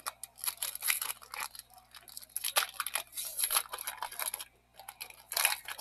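Foil wrapper of a baseball card pack crinkling and tearing open, a run of dry crackles in uneven bursts.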